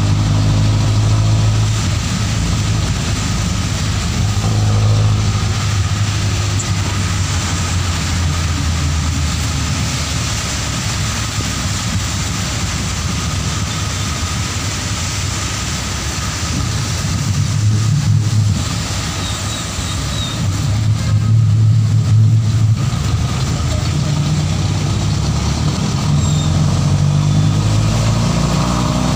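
Engine of a vehicle being ridden in, running as it drives along and its pitch shifting with speed, over a steady hiss of tyres on a wet road. The engine grows louder for a few seconds near the end.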